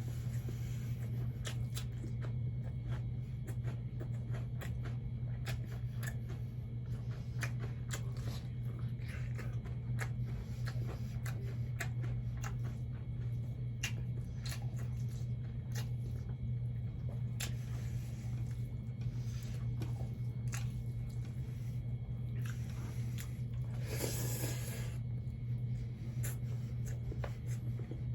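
Close-miked chewing of fried catfish with rice: many small wet mouth clicks and smacks over a steady low hum, with a louder burst of crunching noise about three-quarters of the way through.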